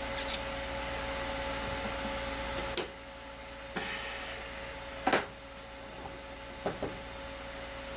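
Steady electrical hum with a few sharp clicks and knocks of test leads and equipment being handled on a workbench, the loudest about five seconds in. The low part of the hum drops away after a click about three seconds in.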